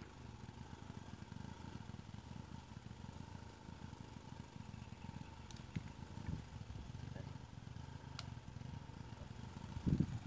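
Faint, steady low rumble with a few faint clicks.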